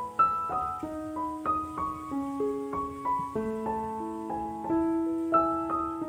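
Background piano music: a slow, gentle melody of single notes, struck about every half second and left to ring into one another.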